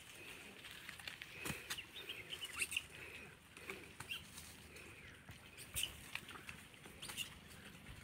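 Faint scattered clicks and rustles, as of movement through grass, with a few sharper ticks at about one and a half, two and a half and six seconds in. Light, high chirping sounds over them.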